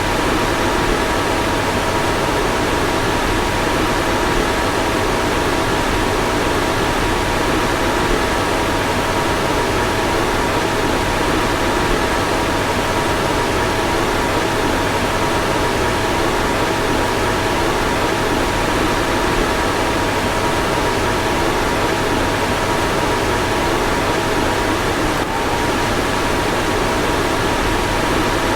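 Car fan running steadily: an even rushing of air with a steady two-note hum over it, and a brief hitch in the hum near the end.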